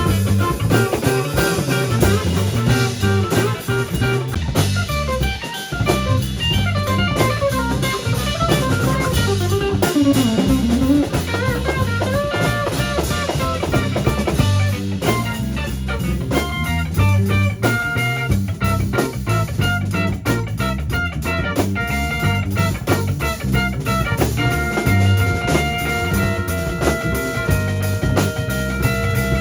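Blues-rock band music: guitar playing over a drum kit with a steady beat.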